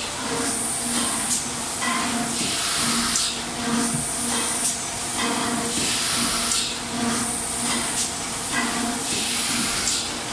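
Factory-floor noise of plastic thermoforming machines running, with repeated hisses of air every second or two over a steady mechanical drone.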